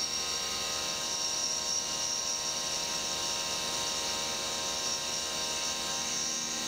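CNC milling machine's 3/16-inch end mill cutting a roughing pass in a gas block under flood coolant, a steady running sound with several held tones. The cut runs without chatter.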